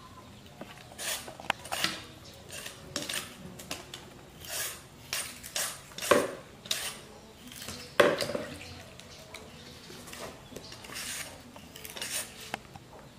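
Handheld metal peeler scraping the skin off a green fruit: an irregular run of short scraping strokes, with two louder sharp clicks about six and eight seconds in.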